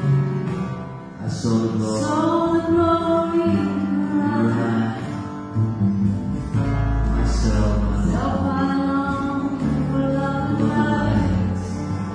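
Live acoustic band of piano, acoustic guitar, violin and cello playing a slow passage, a melody line sliding over held low notes.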